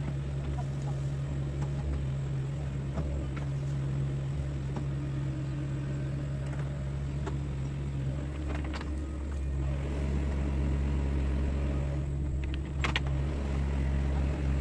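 Mini excavator's diesel engine running steadily under digging work, picking up a little in load about two-thirds of the way in. A few short knocks come from the working machine.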